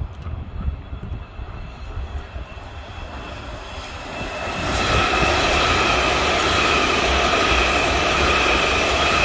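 Washington Metro train growing loud about four to five seconds in, then passing with a steady high whine over the rumble of the cars.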